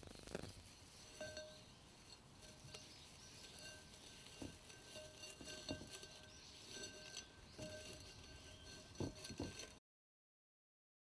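Soft handling sounds of an unfired clay pot wrapped in rice straw: straw rustling and a few light knocks as the pot is set down into a container. The sound cuts off to dead silence near the end.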